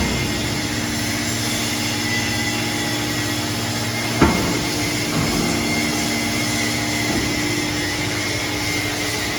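Hydraulic scrap metal baler's power unit running with a steady hum, and a single sharp metallic clank about four seconds in.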